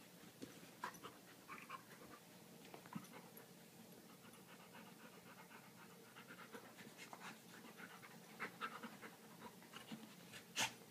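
A dog panting softly while playing, with scattered faint rustles and clicks as it mouths and paws a rock wrapped in a towel, and one sharp click near the end.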